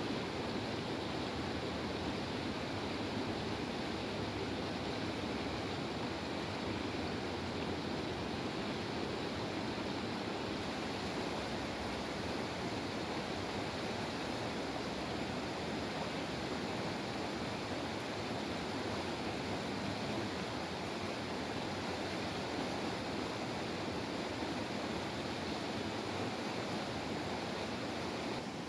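Fast-flowing stream rushing over a rocky bed in a stone-walled channel: a steady, even rush of white water.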